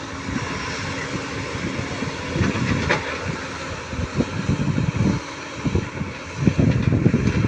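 Heavy diesel construction machinery running, with irregular metal clanks and knocks that grow more frequent in the second half.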